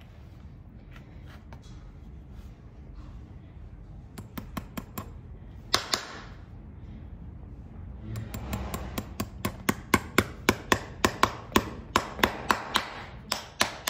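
Farrier's driving hammer striking horseshoe nails into a horse's hoof through the shoe: a few scattered light taps at first, then from about halfway a steady run of sharp metallic strikes, about three a second.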